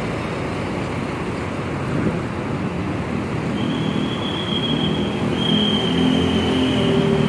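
Road traffic passing steadily, with vehicle engines running low underneath. A thin steady high tone joins about three and a half seconds in, and engine hum grows near the end as another vehicle approaches.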